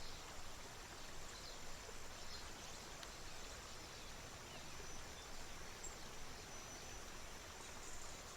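Stream water flowing steadily, with a few faint, short bird chirps scattered over it.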